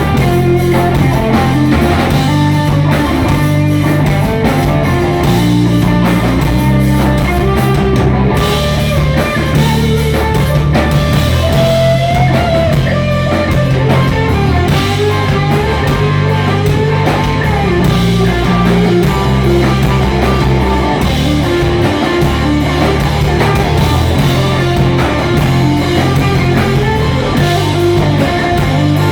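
Rock music with electric guitar, bass and drums, playing steadily at a constant loudness.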